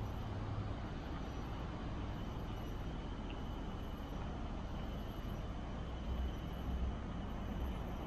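Steady outdoor background of distant road traffic, a low even rumble, with faint high steady insect buzzing over it.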